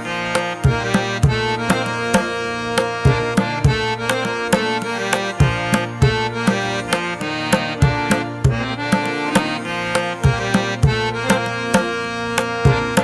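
Instrumental background music: steady hand-drum strokes in a rhythm over held, sustained chords.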